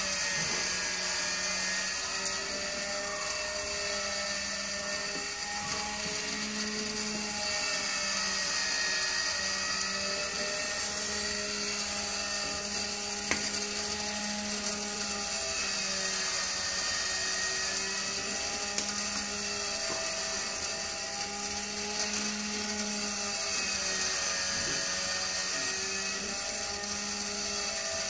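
Electric rotisserie spit motor running steadily, its hum rising and falling slightly in pitch every few seconds, over a steady hiss. One sharp click about halfway through.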